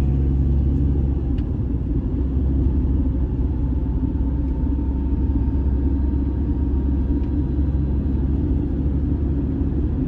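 Steady low rumble of a moving car heard from inside the cabin, engine and tyre noise while it tows a caravan along the road.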